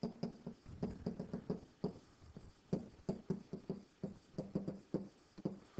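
A pen stylus tapping and scraping on a digital writing surface as a word is handwritten: a string of short, irregular clicks and knocks, several a second.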